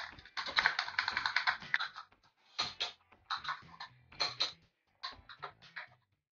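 Small plastic toy cookware and utensils clattering and tapping as they are handled. A dense run of clicks comes first, followed by several shorter bursts of clicking with brief pauses between.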